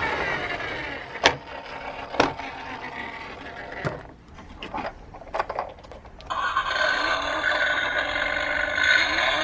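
Sharp clicks and knocks of toy minicars on a slope track, a few single ones, then a quick cluster. About six seconds in, a toy's electronic siren sound starts up with several steady tones.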